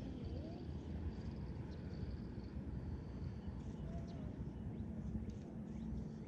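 Quiet outdoor ambience: a steady low rumble, with a faint hum coming in about halfway through and faint high chirps.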